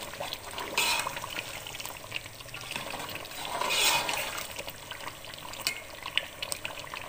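Metal spoon stirring and scraping through chicken korma in a pot as the gravy fries on high heat with ground dried coconut, with light clicks of the spoon on the pot and two louder scrapes, about one second in and around four seconds in.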